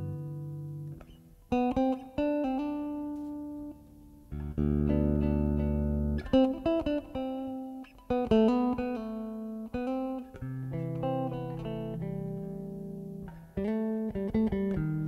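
Live jazz on acoustic guitar and bass guitar: long held low bass notes under plucked guitar chords that ring and fade, in stop-start phrases with short gaps.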